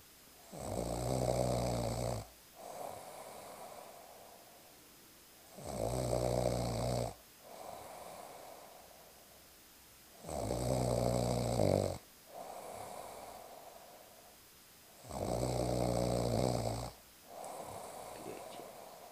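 A person snoring while asleep. There are four loud snores with a low buzz, each about a second and a half long and coming about every five seconds, and each is followed by a quieter breath.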